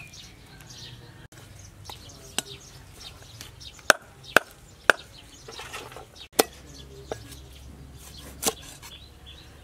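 Cleaver chopping through a large catfish on a round wooden chopping block: a handful of sharp knocks, three in quick succession about four seconds in.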